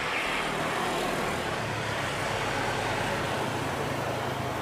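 Jet engines of a Boeing 737-800 (CFM56-7B) running as the airliner rolls along the ground: a steady rush of jet noise with a low hum under it.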